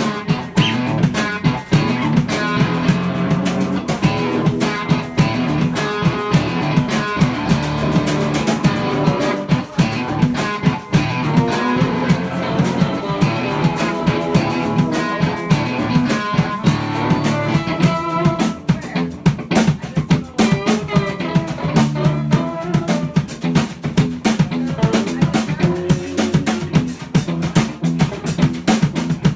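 Live band jamming instrumentally: electric guitar played over a drum kit keeping a steady beat.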